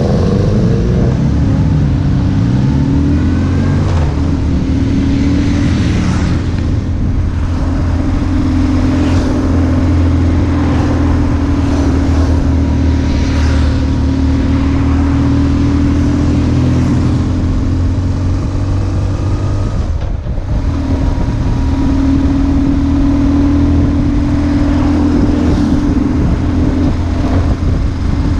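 BMW R1150GS boxer twin engine running under way, its note rising and falling gently with the throttle. About two-thirds of the way through the engine note drops out briefly, as when the throttle is closed for a gear change, then picks up again.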